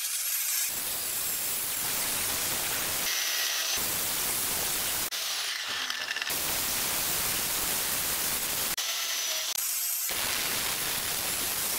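Abrasive cut-off disc grinding into 5160 spring steel: a steady harsh hiss with a faint high whine, its tone changing abruptly several times.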